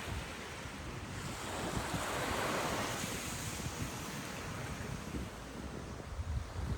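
Sea waves breaking and washing up the sand, one wave swelling and peaking about two to three seconds in, with wind buffeting the microphone in low gusts.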